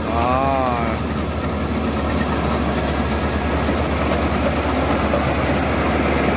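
Tractor-type rice-straw rolling baler (Phan Tấn PT.CR57.1) running steadily as it drives over the stubble, its engine humming low under a dense clatter from the straw pickup.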